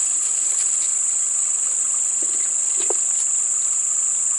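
Steady, high-pitched insect chorus: one unbroken shrill note that holds at the same level throughout.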